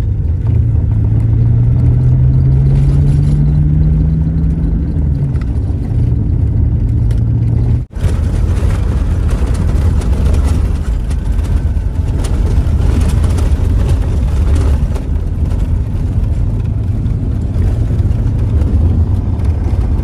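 Car driving along the road, its engine note climbing steadily and then dropping back about five seconds in, under a constant rumble of road noise. After a sudden break about eight seconds in, a steady rumble of engine and road noise carries on.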